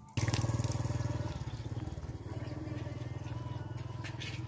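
A small engine running steadily with a fast, even beat, cutting in abruptly a quarter second in and easing off slightly.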